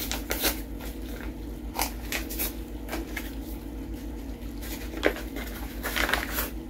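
Paper seasoning-mix packet being torn open and handled: scattered soft crackles and rustles, with a sharper tick about five seconds in and a few more crinkles near the end.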